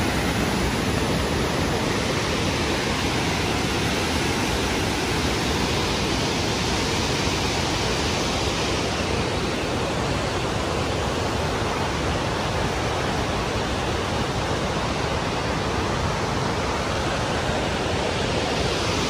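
Waterfall rushing: a steady, loud wash of falling water that does not change.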